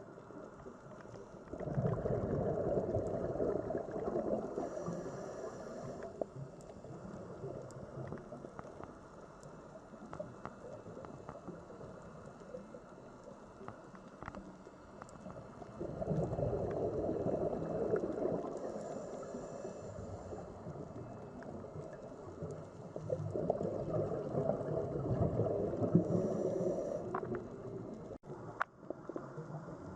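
Sea water heard as deep, underwater-style ambience: a low rushing, gurgling wash that swells up for a few seconds three times and settles back between, with scattered faint clicks.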